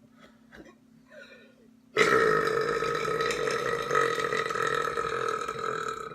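A single long, loud belch starting abruptly about two seconds in and held at a steady pitch for about four seconds before fading. It is preceded by a few faint short clicks.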